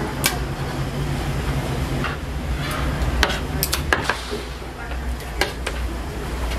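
Metal scraper scraping and tapping on a plastic cutting board as fish paste is spread and scooped up, with scattered sharp clicks and a scraping hiss. A steady low hum runs underneath.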